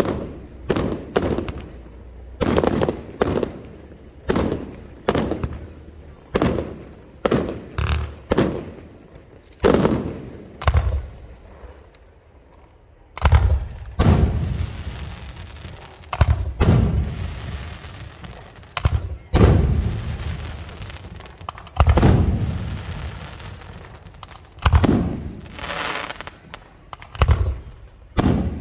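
Aerial fireworks display: a quick run of sharp bangs, a short lull about halfway, then heavier booms, each followed by a trailing crackle.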